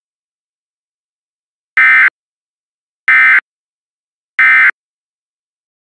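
Emergency Alert System SAME end-of-message code: three short, harsh buzzing data bursts about 1.3 s apart, the digital signal that closes an EAS alert.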